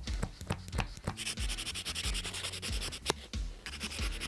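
Background music with a steady clicking beat and low repeating notes, with a scratchy rubbing noise from about one to three seconds in.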